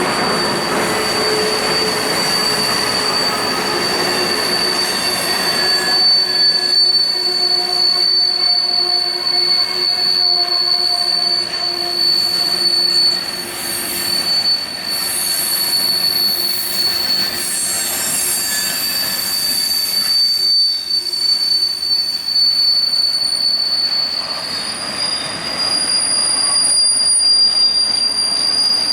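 Freight train cars rolling past with a steady high-pitched squeal from the wheels, joined by lower squeals that come and go in the first half.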